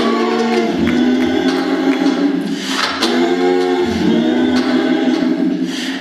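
Group of voices singing a cappella in sustained harmony, the chords shifting every second or so, with a few sharp percussive beats over it.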